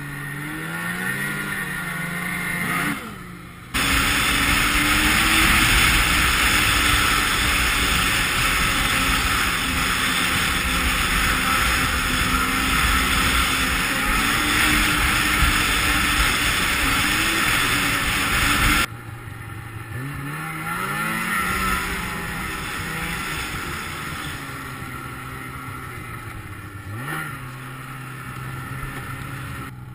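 Snowmobile engine running and revving up and down while riding a snow trail, its pitch rising and falling. The sound changes abruptly twice at cuts, and the louder middle stretch carries a steady rushing noise of wind and track under the engine.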